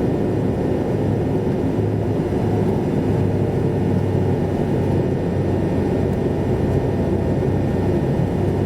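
Steady road and engine noise inside a moving car's cabin: a constant low rumble with a faint hum.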